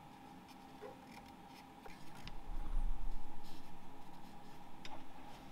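Marker tip scratching and tapping on a steel plate through the mounting holes of a hydraulic handbrake, with light clicks from the handbrake being handled. About two seconds in, a low rumble swells and fades as the handbrake is shifted on the plate.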